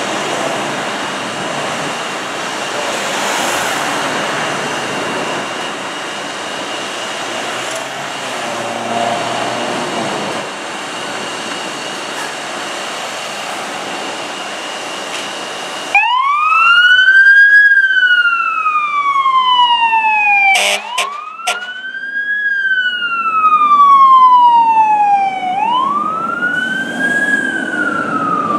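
Idling fire apparatus with a steady high-pitched tone. About sixteen seconds in, a fire engine siren starts wailing, rising quickly and falling slowly about every four to five seconds. Two short horn blasts come a few seconds after the siren starts.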